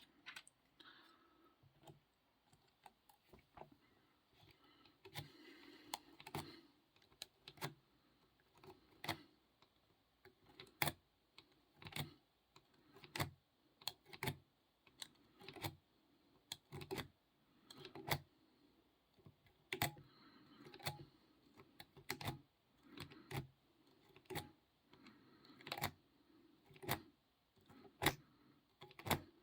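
Small metallic clicks from lock picks being worked in a Jasafe padlock: a long run of sharp, separate clicks, about one a second, with faint scraping between.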